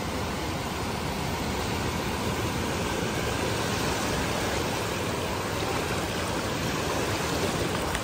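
Small sea waves breaking and washing in over the sandy shallows at the shoreline: a steady rushing noise of surf.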